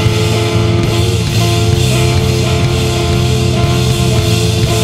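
Loud math-punk band playing an instrumental passage live: electric guitar, electric bass and a drum kit with cymbals, the drummer hitting hard.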